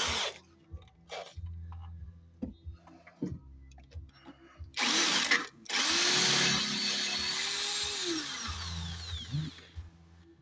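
Electric drill with an 8 mm bit boring into a front brake pad of a Mercedes Vito 639, cutting a recess for an anti-rattle spring. A brief burst of drilling comes right at the start and another about halfway through. Then comes a steady run of about four seconds, whose motor pitch drops away as the drill stops near the end.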